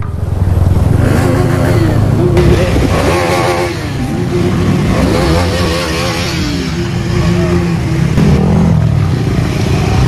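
Several motorcycle engines running and revving, the pitch rising and falling, as bikes ride through a shallow stream crossing, with water splashing.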